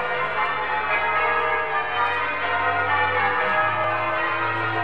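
Church bells ringing, many bells sounding over one another in a continuous peal.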